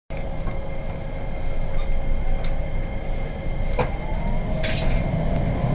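Inside a JR Biwako Line electric train: a steady low rumble of the car. About four seconds in there is a click, then a short hiss of air and an electric motor whine rising slowly in pitch as the train starts to pull away.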